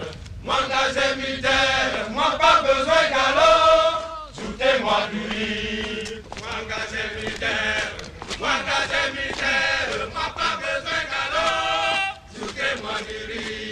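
Men's voices chanting together, several voices overlapping in sung phrases, with short breaks between phrases about four seconds in and again near the end.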